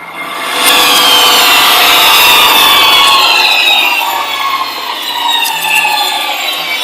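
A machine or power tool running loudly, a harsh rasping noise under several whining tones that slowly fall in pitch.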